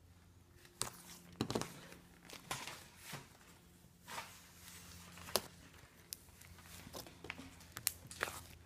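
Purple glitter slime being squeezed and kneaded by hand, giving faint, irregular sticky clicks and small pops.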